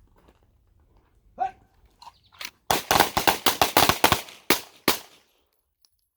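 A short shouted start command, then a line of shooters firing handguns together: a rapid, overlapping volley of about a dozen shots over two and a half seconds, ending abruptly.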